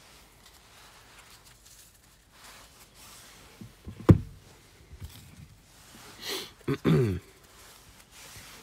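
Trading cards being handled and sorted into piles on a table: faint shuffling, a sharp knock about four seconds in, a brief brushing sound around six seconds, and a short sound falling in pitch near seven seconds.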